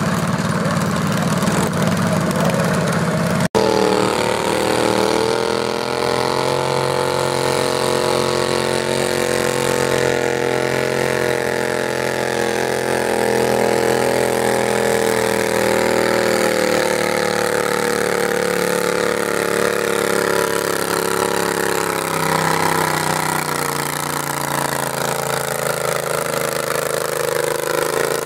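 Garden tractor engine running steadily at a fairly constant pitch. The pitch wavers slightly and sags a little past the middle. About three and a half seconds in, the sound breaks off for an instant and switches from a lower rumble to this higher, clearer engine note.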